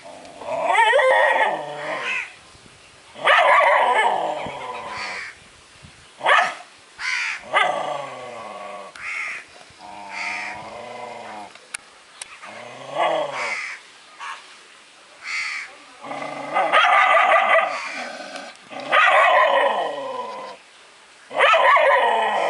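A dog barking repeatedly at its own reflection, taking it for another dog: about a dozen barks with pauses between, some short and some long and drawn out.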